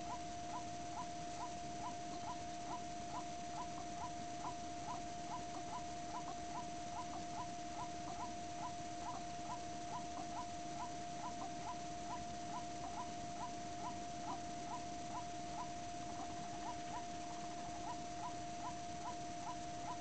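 White-breasted waterhen (kareo) call: short rising notes repeated steadily about twice a second without a break, over a steady faint hum.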